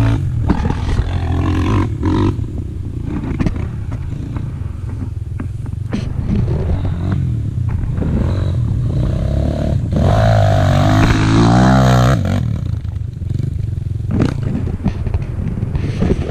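Enduro dirt bike engine running under throttle, revving up and falling back in pitch about two thirds of the way in, with scattered knocks and rattles.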